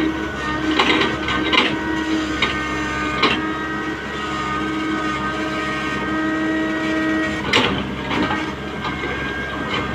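Tata Hitachi 120H excavator running, a steady engine and hydraulic whine with several sharp knocks, the loudest about three quarters of the way through.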